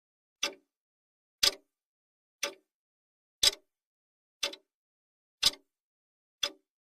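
Clock ticking sound effect of a countdown timer: one sharp tick a second, seven in all, every other tick a little louder like a tick-tock, with silence between.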